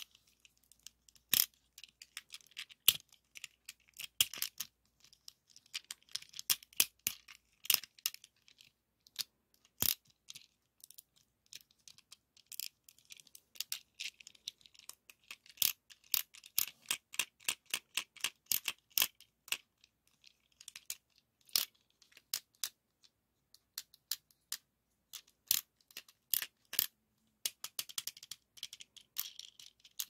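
Hard plastic toy car handled by fingers close to the microphone: irregular sharp clicks, taps and light rattles, several a second, with stretches of soft crinkling in between.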